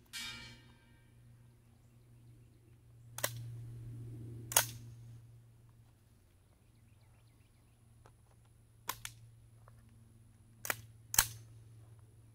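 Colt AR-15 carbine fitted with a .22 LR subcaliber device: a series of about six sharp metallic clicks and snaps, the first followed by a brief metallic ring, the loudest about four and a half and eleven seconds in.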